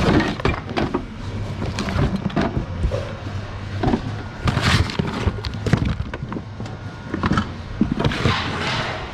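Thrift-store goods clattering and knocking as they are sorted through in the bins, over a steady low hum.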